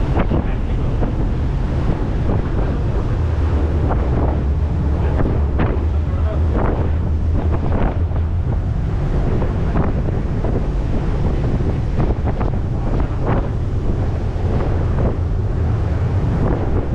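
Wind buffeting the microphone aboard a moving Staten Island Ferry, in uneven gusts, over a steady low rumble and the rush of water along the hull.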